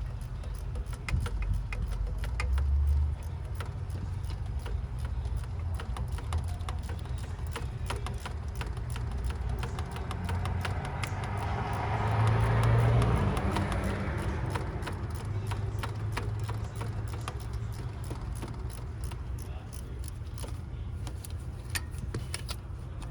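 Socket ratchet clicking in runs as the starter's mounting bolts are tightened, over a steady low rumble. A broad swell of noise rises and fades about halfway through.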